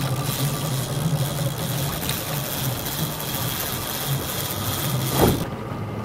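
A boat's engine running steadily at low speed under a rushing hiss of wind and water. About five seconds in there is a thump, and the hiss drops away.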